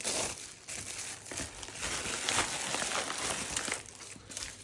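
Crinkling and rustling of gift packaging being handled and unwrapped, in irregular crackly bursts.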